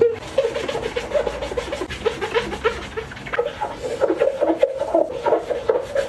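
Gloved hands scrubbing a soap-foamed glass jar: a quick run of short squeaks of glove on wet glass, with wet foamy rubbing. It grows busier after about four seconds.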